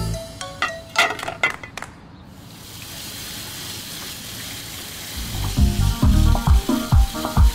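Music with a strong beat stops about two seconds in, and tap water runs and splashes into a kitchen sink as dishes are rinsed under it. About five seconds in the beat comes back over the running water.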